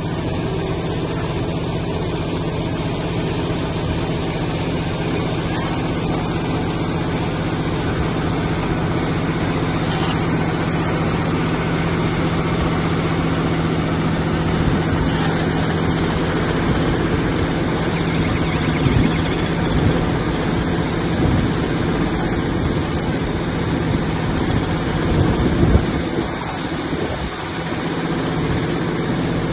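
Silage baler-wrapper machine running steadily with a constant mechanical hum, with a few louder knocks and rattles in the second half.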